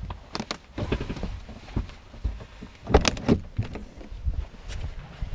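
Knocks, clicks and rubbing from an action camera being handled and moved, over a low wind rumble on its microphone. The loudest knocks come about three seconds in.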